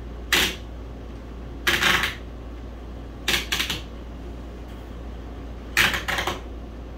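Plastic toy cookware and play food clattering as a child rummages in a toy play kitchen, in four short rattling bursts a second or two apart.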